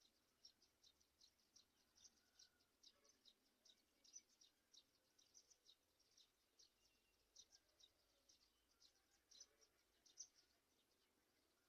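Near silence, with faint high-pitched chirps repeating irregularly, about three or four a second.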